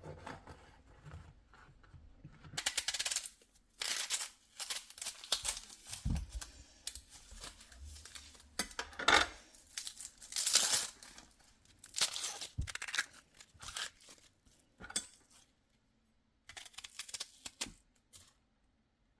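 Hands handling food for a sandwich: irregular bursts of tearing and crinkling, with a couple of dull knocks and light clinks.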